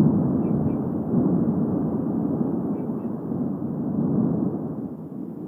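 Erupting volcano giving off a continuous low rumble that swells and eases, dropping off near the end.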